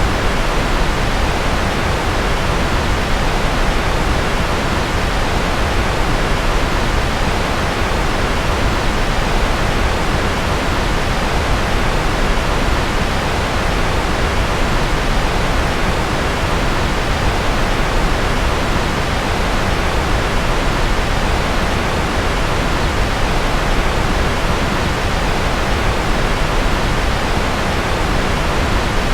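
Steady, unchanging rocket-noise white noise: an even, unbroken hiss, fuller in the lows and mids and thinning out in the highs.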